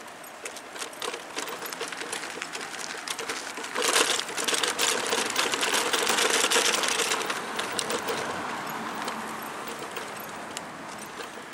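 Rapid, irregular ticking and crunching of movement over loose dirt and gravel, with street traffic noise swelling as a car passes, loudest from about four to seven seconds in.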